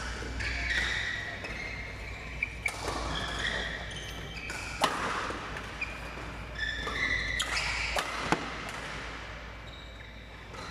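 Badminton rally: racket strings hitting the shuttlecock, about half a dozen sharp cracks one to two seconds apart. Short squeaks of players' shoes on the court floor come in between the hits.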